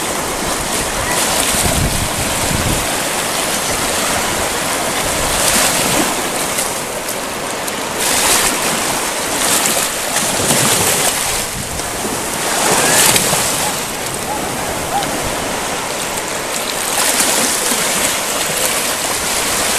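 Shallow surf washing and splashing around a person sitting in the water, swelling and ebbing in repeated surges, with some wind buffeting the microphone.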